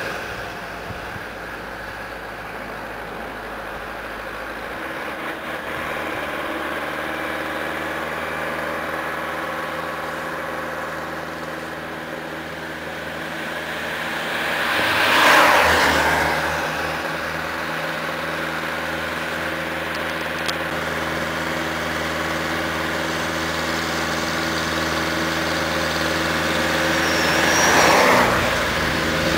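Ursus C-360 tractor's diesel engine running steadily under heavy load as it hauls a 14.5-tonne trailer uphill. Two vehicles pass close by, one about halfway through and one near the end, each swelling and fading.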